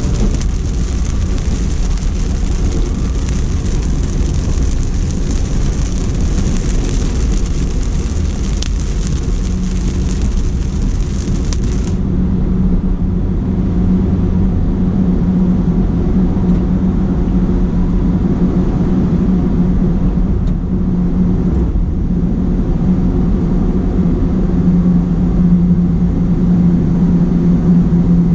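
Steady low rumble and hum of a car on the move, heard from inside. Over the first part an even hiss of rain runs over it, until an abrupt cut about twelve seconds in. After the cut only the rumble and hum go on.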